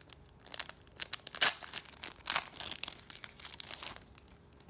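Clear plastic wrapper of a small pack of trading cards crinkling and tearing as it is pulled open by hand: a run of irregular sharp crackles, loudest about one and a half and two and a half seconds in, dying away near the end.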